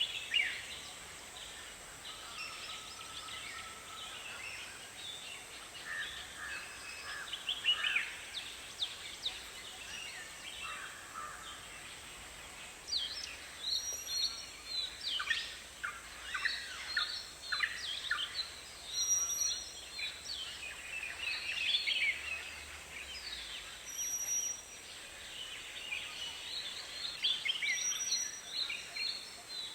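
A chorus of many birds chirping and calling at once, busier from about halfway through. A short, high whistled note recurs every four or five seconds, over a steady faint high hiss.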